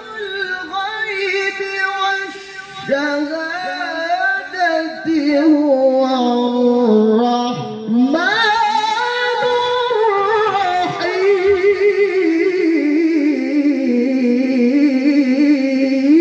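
Male Quran reciter chanting in the melodic mujawwad style through a microphone: long high phrases with ornamented runs, and from about eleven seconds in one long held note with a steady, even vibrato.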